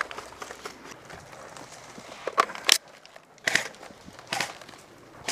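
Airsoft electric gun firing several short bursts, sharp cracks spaced through the latter half, over a low background hiss.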